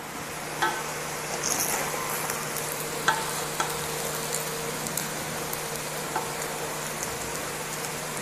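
A ladle gently turning cooked fish biryani rice in an aluminium pot, with a few short clicks of the ladle knocking the pot over a steady hiss.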